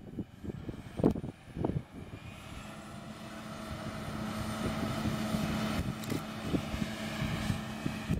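John Deere 8600i self-propelled forage harvester running at work: a steady machine drone with a held hum, growing louder from about two seconds in. In the first couple of seconds, wind buffets the microphone in low thumps.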